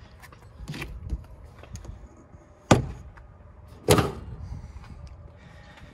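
RV outside-kitchen compartment door being unlatched and swung open: small clicks and rattles of the latch, then two sharp clunks about a second apart as the door releases and opens.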